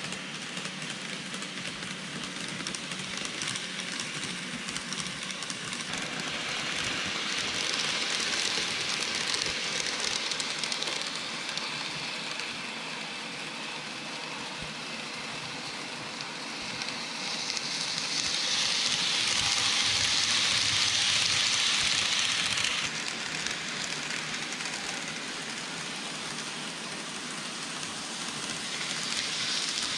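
N-gauge model trains running on layout track. Their wheels and motors make a steady hissing rumble that swells as a train passes close by, three times. The loudest pass drops off sharply about two-thirds of the way through.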